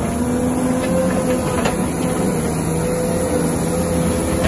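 CAT 930K wheel loader's diesel engine running steadily under load as the loader pushes a snow bank with its plow blade, with a few faint knocks.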